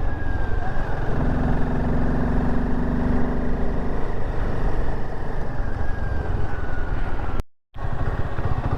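Royal Enfield Himalayan 450's single-cylinder engine running as the motorcycle is ridden, under steady wind noise. The sound cuts out for a moment near the end.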